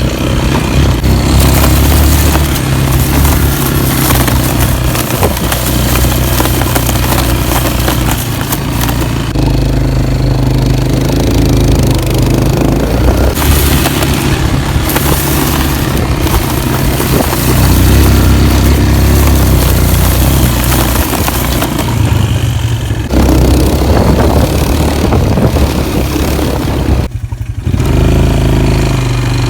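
ATV engine running under varying throttle, its level rising and falling as it drives. Near the end it drops out briefly for about half a second, then comes back.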